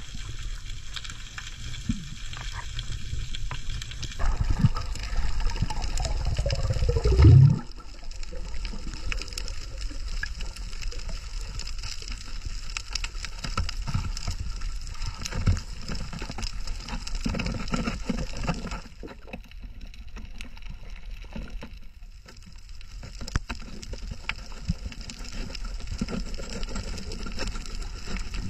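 Underwater sound on a coral reef: a steady, muffled water rumble and hiss, scattered with sharp clicks. About seven seconds in, a falling sweep ends in a loud, low thump.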